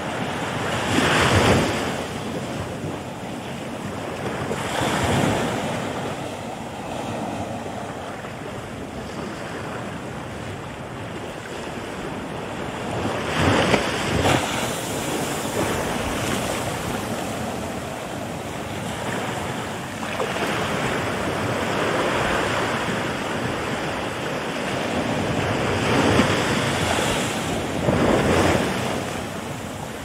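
Ocean surf breaking and washing ashore: a continuous rushing wash that swells in several louder surges a few seconds apart as waves break.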